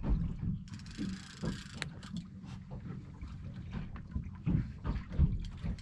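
Wind rumbling on the microphone, with irregular low knocks and a short hiss about a second in.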